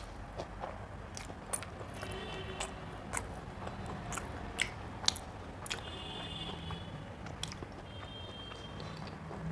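Close-miked eating sounds: chewing a mouthful of rice, daal and curry, with sharp wet mouth clicks and smacks at irregular moments.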